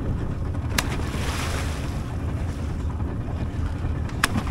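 Wind buffeting the microphone over lapping seawater, with two sharp clicks, one about a second in and one near the end.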